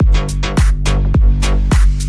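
Electronic hip-hop backing music: a heavy beat with booming bass drums that slide down in pitch, about two hits a second.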